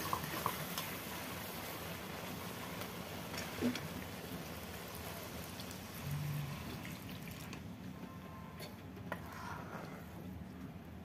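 Chicken-feet curry sizzling in a metal kadai, with a steel spatula scraping and clicking against the pan. About six seconds in, water is poured into the pan, and the sizzling hiss then dies down.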